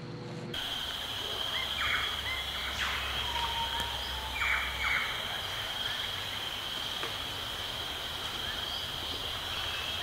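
Bush ambience: a steady, high-pitched drone of insects, with a few short bird calls about two seconds and four and a half seconds in.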